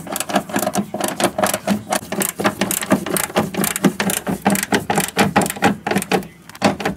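Ratchet wrench with a socket on an extension clicking rapidly as it runs a nylock nut down onto a stud, tightening the fan switch bracket. The clicks come fast and even, then slow and stop near the end.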